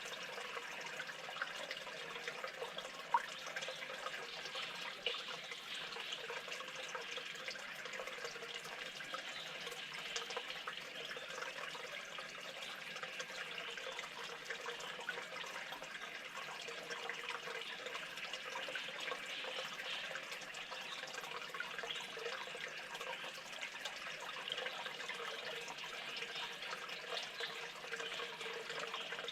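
Steady noise like running or trickling water, with faint scattered ticks throughout.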